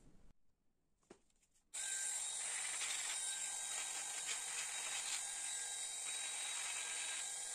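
Pen-style rotary carving tool with a fine bur running steadily, giving a high whine over a hiss as it grinds into linden wood. It starts abruptly about two seconds in, after a near-silent moment with one faint click.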